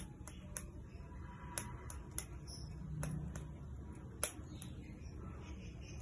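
Faint, irregular light metallic clicks and tinkles from a small bell or tag on a kitten's collar, jingling as the kitten is held and moves its head, over a low room hum.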